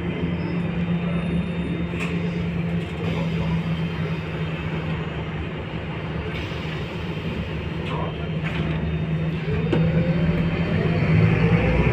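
Scania K230UB city bus heard from inside the passenger cabin: the rear-mounted diesel engine runs with a steady hum. About ten seconds in, a rising whine and louder engine note come in as the bus accelerates.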